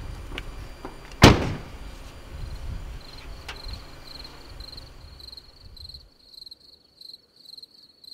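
An SUV's door shut once with a solid thud about a second in, over a low rumble that drops away about six seconds in. Crickets then chirp in a steady, pulsing high trill.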